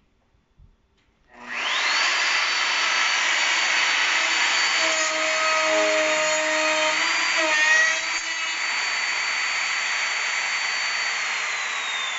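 Plunge router mounted as the spindle of a CNC router table starts about a second and a half in and quickly winds up to a loud, steady high whine as it cuts through an MDF sheet, its tone wavering under the cutting load. Near the end the pitch starts to fall as the router winds down.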